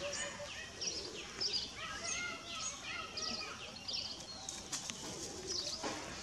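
Rapid series of short, high-pitched chirping calls that drop in pitch, several a second, with a few lower, longer calls mixed in about halfway through.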